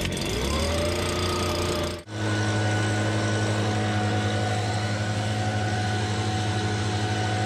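Gas handheld leaf blower engine catching and revving up, its pitch rising over the first couple of seconds. After an abrupt break about two seconds in, it runs steadily at high speed with an even pitch.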